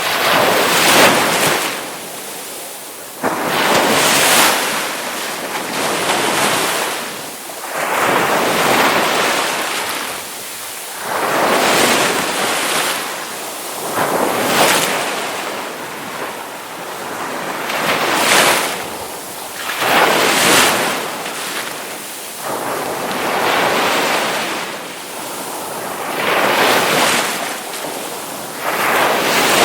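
Ocean waves breaking on the shore, one surge after another: the wash swells and falls back about every two to three seconds.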